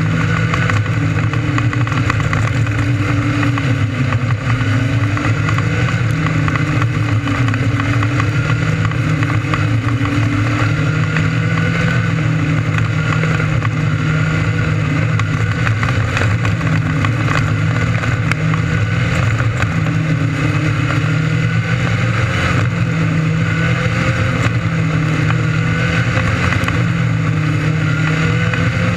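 600cc micro sprint race engines running at race speed, their pitch rising and falling every few seconds as the throttle comes on and off through the laps.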